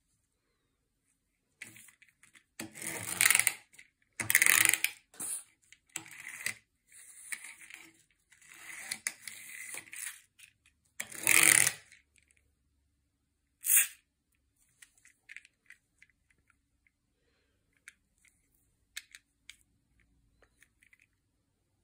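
Hard plastic handled on a table: a gachapon capsule and a miniature toy car scraping and clattering in a run of rattles, then one sharp clack, then scattered light clicks.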